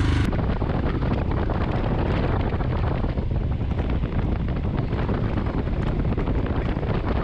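Steady wind rush buffeting the microphone of a camera moving along with motorcycles at road speed, with the low sound of the motorcycle running underneath.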